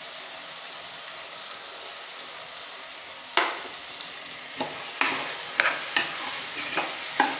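Rice, onion and tomato frying in a pressure cooker with a steady sizzle. From about three seconds in, a steel spatula stirs the mix, scraping and knocking against the pan several times.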